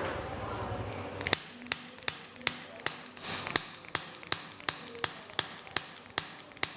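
A rapid, evenly spaced series of sharp clicks, about three a second, starting a little over a second in.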